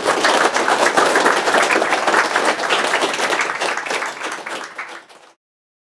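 Audience applauding, many hands clapping at once; the clapping thins out and then cuts off abruptly about five seconds in.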